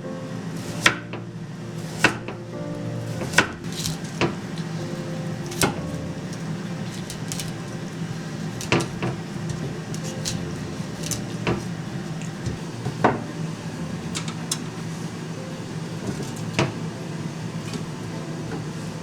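Irregular clinks and knocks of dishes and utensils being handled during food preparation, over steady soft background music.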